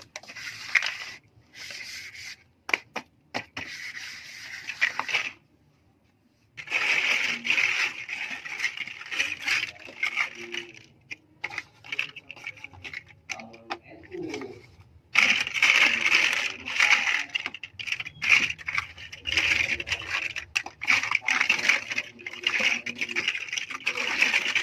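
Plastic LEGO pieces being handled, a dense clatter of small clicks and rattles, with a short pause about six seconds in.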